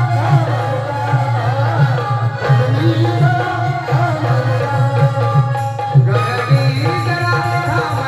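Marathi tamasha dance music: a steady, fast hand-drum beat under a sung melody.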